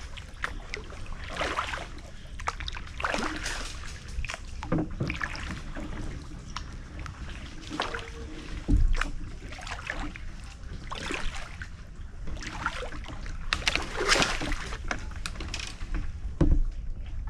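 Kayak paddle strokes dipping into calm water, a swish about every one and a half seconds. Two dull thumps, about halfway through and near the end, are the loudest sounds.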